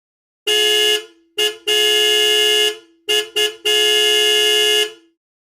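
Car horn honking in two runs of three: two short beeps and a long blast of about a second, then two quick beeps and another long blast.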